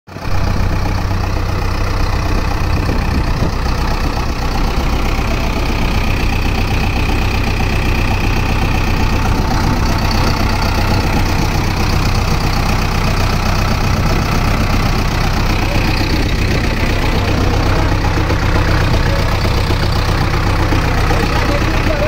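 Diesel engine of a JCB 3CX backhoe loader idling steadily, with an even hum.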